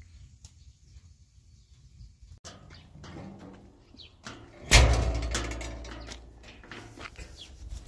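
A metal yard gate slamming: one loud bang about halfway through, dying away over a second or so.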